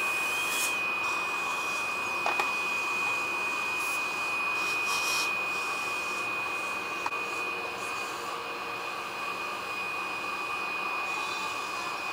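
Dental handpiece and suction running while remaining tooth decay is removed. A constant high whine sits over an airy, vacuum-like hiss, with a few brief hissing surges about five seconds in.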